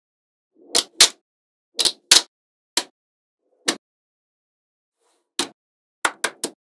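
Magnetic balls clicking as they snap together, about ten sharp clicks at irregular intervals, some in quick pairs and a run of three near the end.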